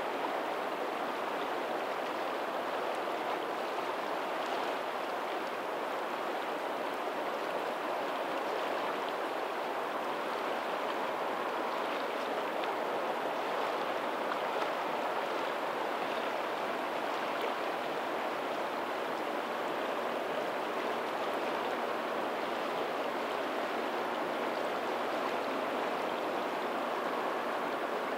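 Lagoon tidal outflow water running steadily toward the sea, a continuous even rush with fine splashing.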